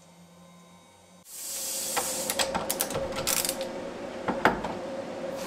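A sudden burst of hiss about a second in, then a run of sharp metallic clicks and clinks as a hand wrench loosens the bolts clamping a freshly machined aluminum part to the CNC fixture plate and the part is worked free.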